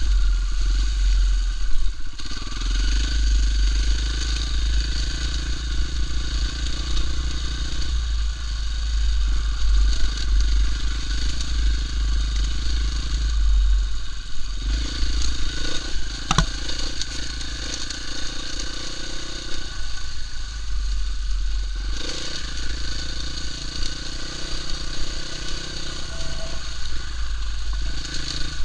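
KTM EXC-F 450's single-cylinder four-stroke engine running as the bike is ridden off-road, the throttle easing off and picking up again several times, over a heavy low rumble of wind on the microphone and rattling of the bike over rough ground. A single sharp knock about sixteen seconds in.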